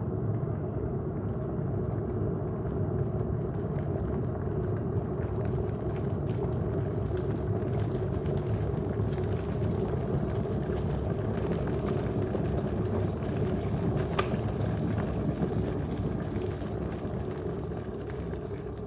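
De'Longhi KBLA3001 Active Line electric kettle heating a full 1.7 litres of water near the boil: a steady low noise with a couple of faint sharp ticks, easing slightly near the end.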